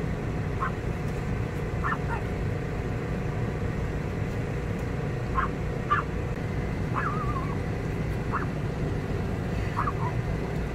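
Short, chirp-like animal calls, one every second or so, over a steady low rumbling background noise; one call about seven seconds in wavers downward.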